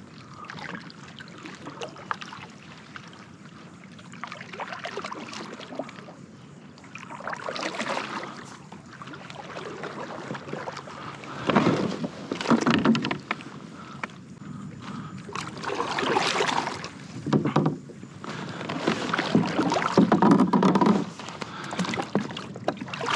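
Water splashing and sloshing around a plastic kayak hull, in uneven bursts that grow louder and more frequent in the second half.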